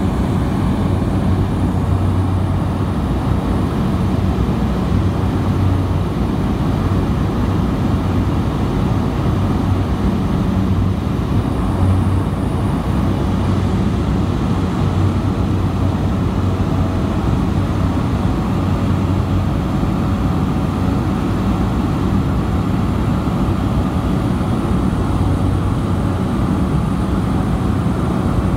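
Small propeller airplane's engine and propeller running at a steady cruise, heard from inside the cabin as a loud, even drone with a low hum.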